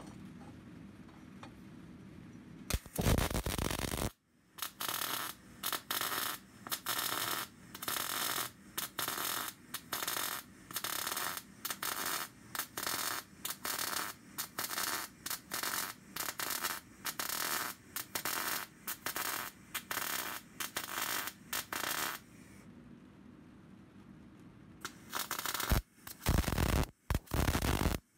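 Electric arc welding on steel: the arc crackles and hisses in short stop-start bursts, roughly one a second, beginning a few seconds in. The bursts pause for a few seconds near the end, then start again.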